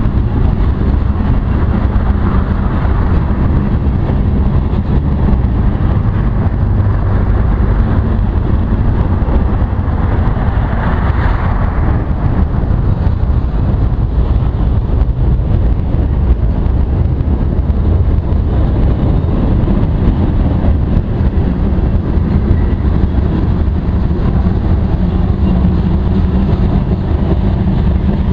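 Freight train cars rolling past: a steady low rumble of wheels on rail, with a brief brighter swell about eleven seconds in.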